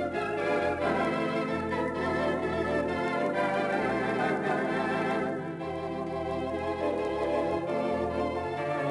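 Theatre organ playing a tune: full sustained chords over a bass line that steps from note to note, dipping briefly softer about halfway through.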